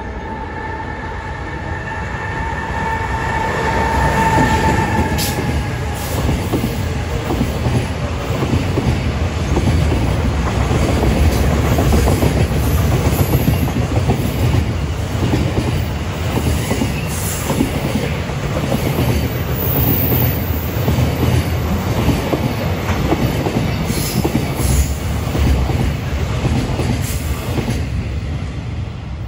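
Freight train passing close by: a steady whine in the first few seconds, then the continuous rumble and clatter of wagon wheels running over the rails, with many rapid knocks from the rail joints.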